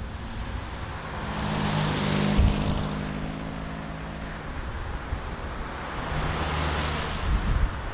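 Motor vehicles passing on a road, engine hum swelling and fading twice, over a steady rushing noise.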